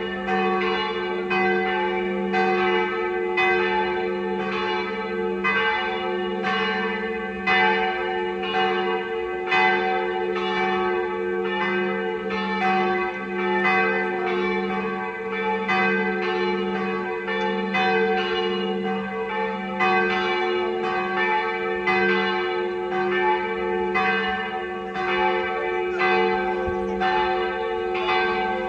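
Cathedral bells of a campanile pealing the midday ring, heard close up: several bells struck in quick, uneven succession, a stroke roughly every second or less, while their deep hum rings on underneath.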